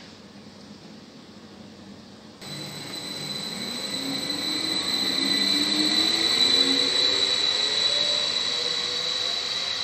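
Stadler Flirt (ETR 170) electric multiple unit pulling away from the platform. Its traction motors give a whine that climbs steadily in pitch as it accelerates, over a steady high electrical whine. The sound starts abruptly about two seconds in, after a faint hum, and grows louder.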